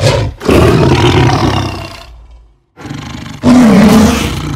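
Tiger roar sound effect, heard twice: a long roar that fades out about two seconds in, then after a short silence a second roar that swells loud about three and a half seconds in.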